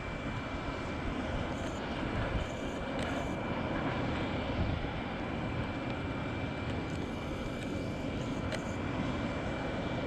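Airbus A319-132 airliner's IAE V2500 turbofan engines on final approach and flare for landing: a steady rushing jet noise with a thin high whine running through it.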